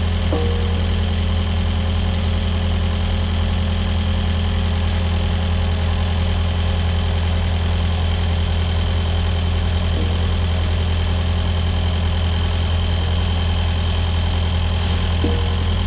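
Kubota excavator's diesel engine idling steadily, with a few faint clicks and a brief hiss near the end.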